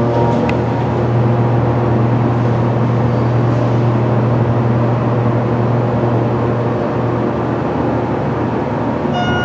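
Schindler MT hydraulic elevator travelling, a steady low hum from the car and its hydraulic drive. A high tone starts near the end.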